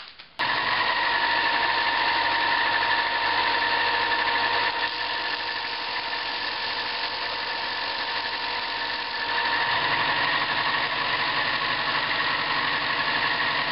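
Bench combination belt-and-disc sander running with a steady whine, switched on or cut in suddenly about half a second in; its sound changes slightly in the middle while a small wooden back plate is sanded on it.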